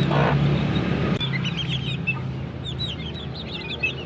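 Young chickens peeping: many short, high calls in quick succession, starting about a second in, over a steady low hum.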